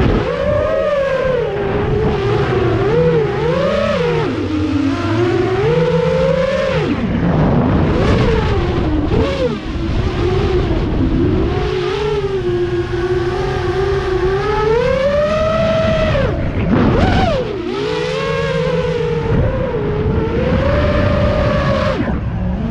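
FPV drone's electric motors and propellers whining, the pitch gliding up and down continually as the throttle changes, with a few quick swoops down and back up.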